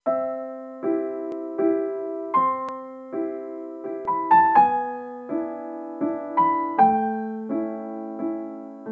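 Slow, gentle piano music: soft chords struck about every 0.8 seconds, each fading before the next, with a few quicker, higher notes in the middle.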